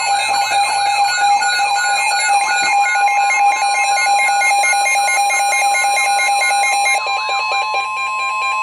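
Emergency Alert System attention signal for a severe thunderstorm warning: loud, steady electronic alarm tones with a warbling tone layered over them. About seven seconds in, the warble stops and a single steady tone carries on to the end.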